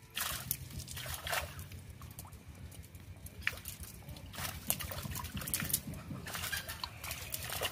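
Water splashing, sloshing and trickling as a wet fishing net is hauled by hand out of shallow pond water, in irregular splashes.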